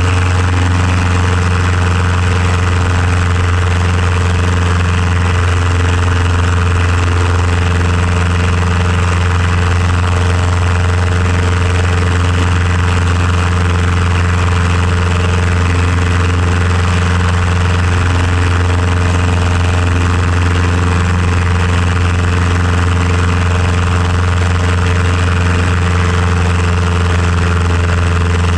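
The engine of an RLU-1 Breezy homebuilt pusher airplane running steadily in flight, a constant low drone with no change in pitch, mixed with propeller and wind noise over the open airframe.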